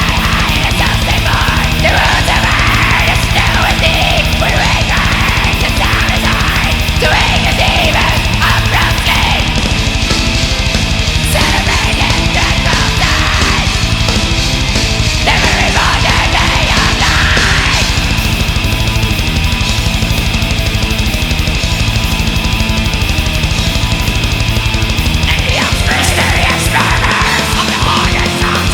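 Black/death metal song: loud, dense distorted guitars over fast drumming, with harsh yelled vocals in stretches.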